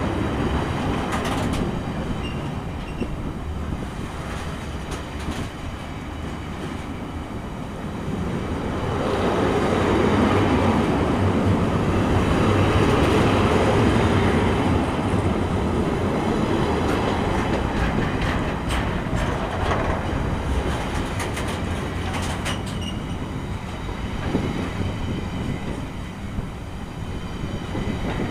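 Freight train wagons carrying waste containers rolling past at track side: a steady rumble of wheels on rail that swells in the middle, with a run of sharp wheel clicks in the second half.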